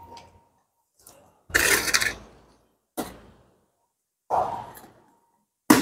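Cutter blade slicing the packing tape on a cardboard carton: four separate scraping, tearing strokes, the longest and loudest about a second and a half in.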